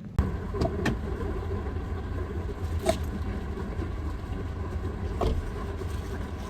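Car on the move: a steady low rumble of road and engine noise, with a few light knocks.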